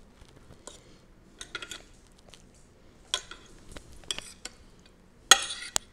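Metal fork clinking and scraping against a ceramic soup bowl in scattered light taps, with a sharper clink about five seconds in.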